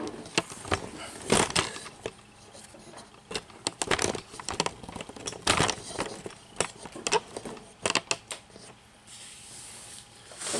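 Close-up handling noise: cloth rustling against the microphone with scattered clicks and knocks as the camera is moved about and set in place.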